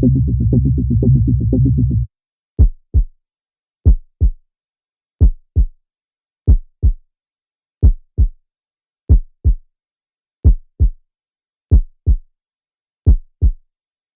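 Electronic music that cuts off about two seconds in, followed by a heartbeat sound effect: nine low double thumps (lub-dub), about one every 1.3 seconds, with silence between them.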